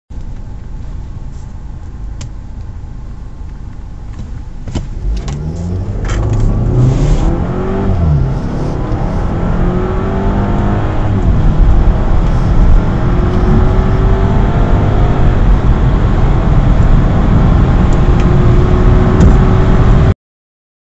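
Car engine idling, then accelerating hard from a standstill about five seconds in, heard from inside the cabin. Its pitch climbs and drops back at each gear change and keeps climbing until the sound cuts off abruptly near the end.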